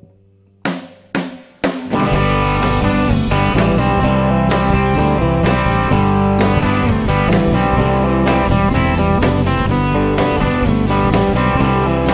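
Live rock band with drum kit and electric and acoustic guitars. Three sharp hits about half a second apart, then the full band comes in together about two seconds in and plays on at a steady, loud level.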